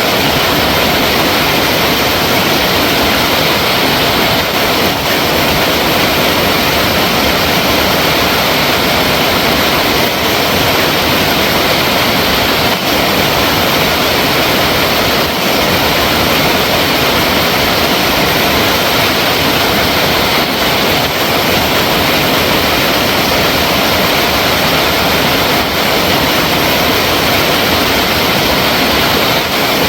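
Water flowing in a steady, loud, unbroken rush, like a waterfall or fast stream.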